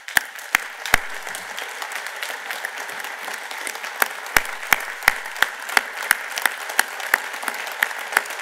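Large audience of delegates giving a standing ovation: dense applause, with single sharp claps close by standing out about three times a second.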